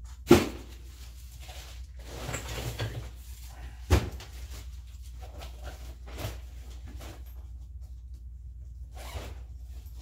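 Items in a storage unit being handled and shifted about. There are two sharp knocks, one near the start and one about four seconds in, with rustling between and a few lighter clunks later, over a low steady hum.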